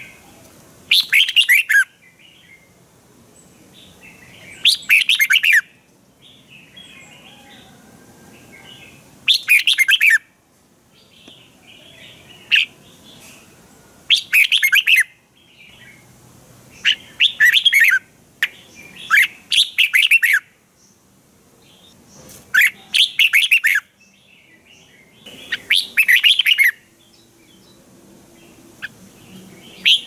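Red-whiskered bulbul singing: short, bright warbled phrases about a second long, repeated every three to four seconds, with soft chirps in between.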